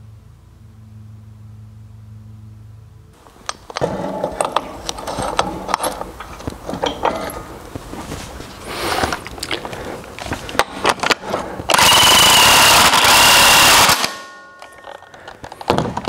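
Metal parts of a planter gauge wheel assembly clinking and knocking as the wheel, spacers and mounting bolt are fitted by hand. Then a power tool runs loudly for about two seconds with a high whine, driving the mounting bolt down.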